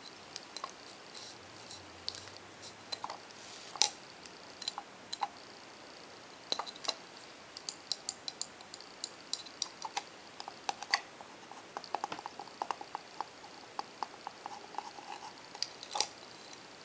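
Fingernails and rings tapping and clicking on a small black wooden specimen frame as it is handled, with a tissue rustling against it. The taps are irregular and sharp, with a quicker run of small clicks in the second half.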